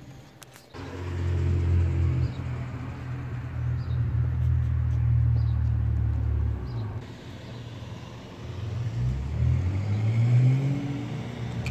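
A car engine running close by: a low steady drone that drops away about seven seconds in, then rises in pitch as it revs near the end.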